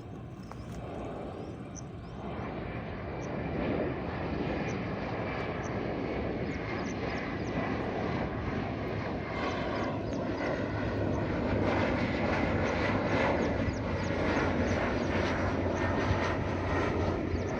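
Airliner engines passing low overhead on approach to land, a broad rumble and hiss growing steadily louder, with a low steady hum joining about ten seconds in.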